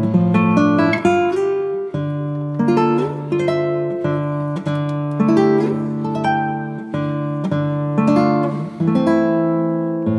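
Background music of plucked acoustic guitar, single notes and chords picked in a steady flow, each note ringing and fading.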